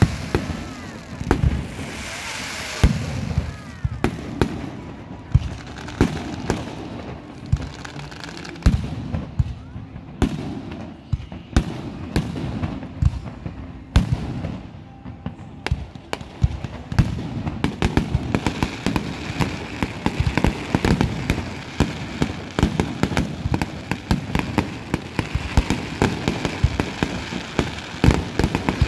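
Aerial fireworks display: repeated bangs of shells bursting overhead. About two-thirds of the way through, it thickens into a dense run of fast crackling.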